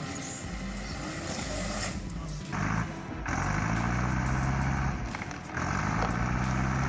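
A machine's engine running and revving: its pitch climbs and then holds steady, with two short drops in level, about two and a half and five and a half seconds in.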